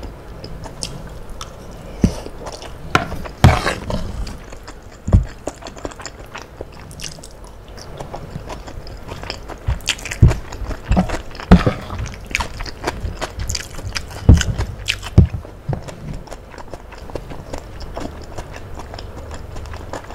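Close-miked chewing and mouth smacks of a mouthful of tahu tek, soft fried tofu and bean sprouts in thick peanut sauce. Short sharp clicks are scattered through it, busiest in the middle, some of them a metal spoon scooping against the plate.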